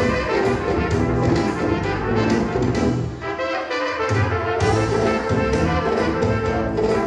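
Brass band music, trumpets and trombones playing over a steady beat; the low parts drop out for about a second around the middle.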